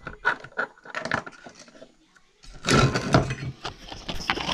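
Small metal parts and tools handled on a workbench: light clicks and clinks at first, then a louder stretch of clattering and rubbing from about two and a half seconds in.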